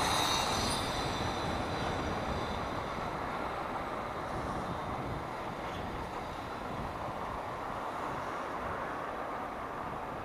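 Riding noise from a Honda CG 160 Start motorcycle: steady wind and road rush with the engine running underneath, and a faint high whine fading out in the first few seconds.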